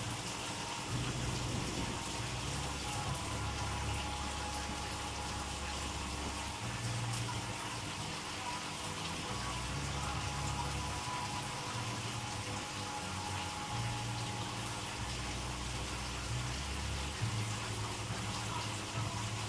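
Steady running water from an aquarium's circulation, with a low rumble underneath that shifts in level every second or two.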